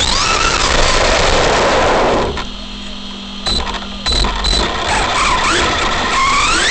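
Arrma Big Rock RC monster truck's electric motor and drivetrain whining as heard from the truck itself, the pitch rising and falling with the throttle over rough tyre noise on pavement. It drops quieter for about a second and a half near the middle, then whines up steeply near the end.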